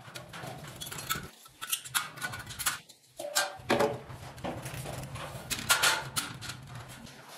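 Light metal clicks and clatter as thin metal ceiling frame bars are handled and fitted overhead, with the loudest knocks about four and six seconds in, over a low steady hum.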